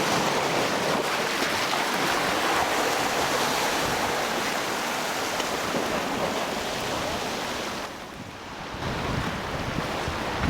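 Waves washing against the rocky shore with wind buffeting the microphone, a steady rushing noise that dips briefly about eight seconds in.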